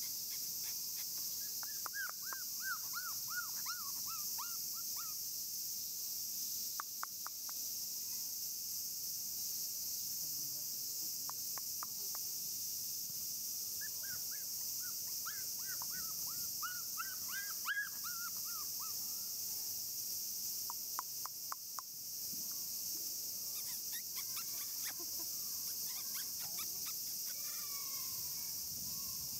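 Outdoor ambience: a steady high-pitched hiss throughout, with two runs of rapid repeated chirping calls, about two seconds in and again around fourteen seconds in, and a few scattered light clicks.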